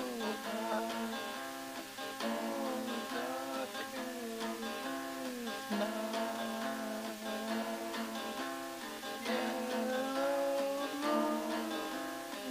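Music: acoustic guitar strumming, with a melody line that slides up and down in pitch above it.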